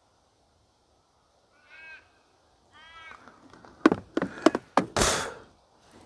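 Australian raven cawing faintly twice, each call a drawn-out wavering note, followed by several sharp clicks and a short rustle close by as fishing line is handled.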